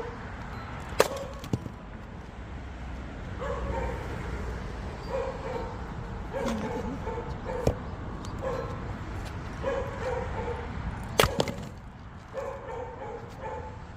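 A dog yipping and barking over and over in short bursts, with a few sharp knocks of an axe splitting firewood, the loudest about eleven seconds in.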